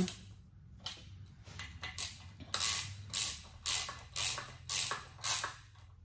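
Socket ratchet worked back and forth, tightening the bolts of a short shifter's reverse lockout plate: a series of ratcheting strokes about two a second, fainter at first and strongest in the second half.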